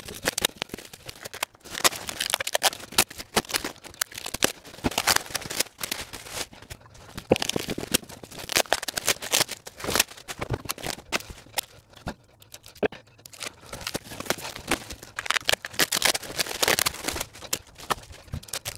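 Black plastic bin-bag wrapping, packing tape and cardboard being cut, torn and pulled off a tyred alloy wheel. Irregular rustling, crackling and ripping comes in bursts with brief pauses.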